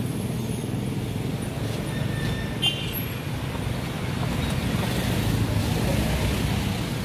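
Steady city street traffic noise: a continuous low hum of motor vehicle engines passing and idling on the road.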